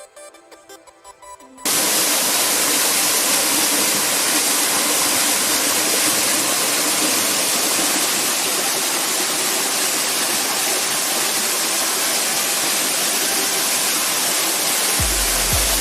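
Faint music, then about a second and a half in a sudden cut to a loud, steady rush of water, like a waterfall. Music with a deep bass comes back near the end.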